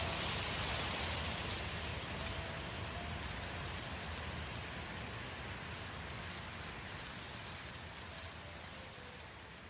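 Forest fire ambience: a steady rushing, crackling noise of burning woodland, slowly fading out.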